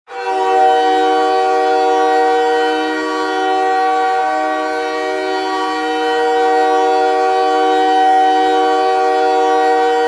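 The Montreal Canadiens' goal horn sounds one long, unbroken blast, a chord of several steady tones that starts abruptly. It is the arena's signal that the Canadiens have scored.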